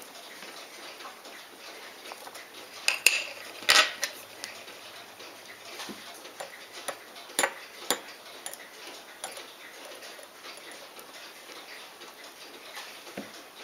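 Steel watchmaker's tweezers clicking against small watch parts and the bench: a few sharp metallic clicks, the loudest about three to four seconds in and two more near eight seconds, with fainter ticks between.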